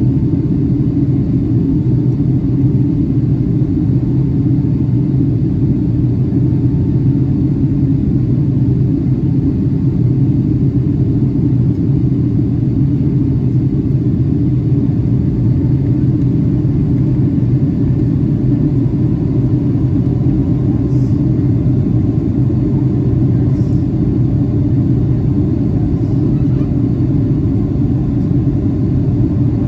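Steady cabin noise inside a Boeing 757-300 airliner in flight: an even, low rumble of engines and airflow.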